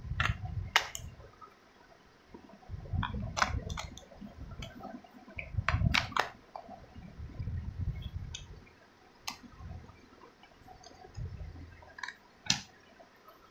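A plastic toy car being handled and turned over in the hands: scattered sharp plastic clicks and taps, a few close together, over intermittent bursts of low rumble.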